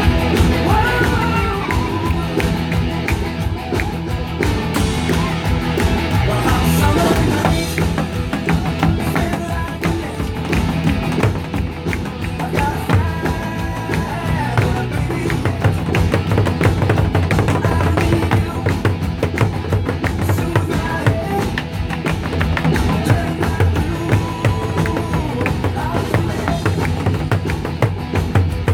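Loud song with singing played over loudspeakers, with drums struck along to its steady beat in a nanta drumming performance.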